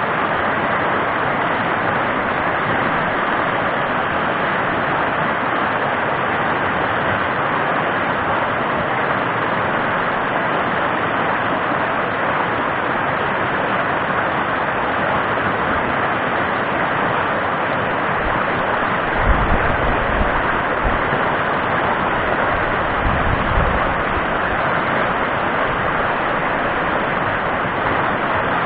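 Rapids of a rocky mountain stream, rushing water making a loud, steady hiss. A few low rumbling buffets of wind hit the microphone about two-thirds of the way through.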